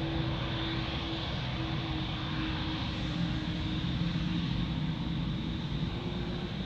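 Steady jet airliner engine noise: an even rush with a held low hum, no change in pitch.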